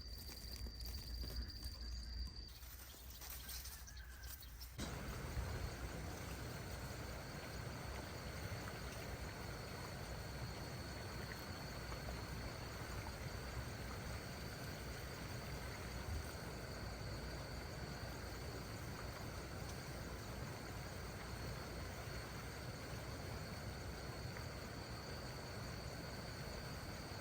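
Insect drone in the forest: one steady high-pitched tone over an even hiss. It sets in about five seconds in, after a few seconds of low rumble and scattered clicks.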